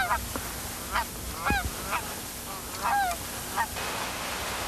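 A flock of geese honking in flight: about six separate calls, several sliding down in pitch.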